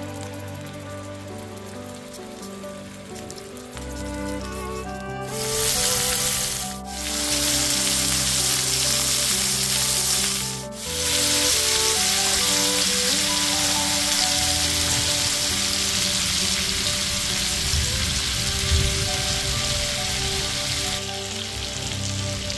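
Ribeye steak searing in hot oil in a cast iron skillet: a loud, steady sizzle that sets in about five seconds in and drops out briefly twice, over background music.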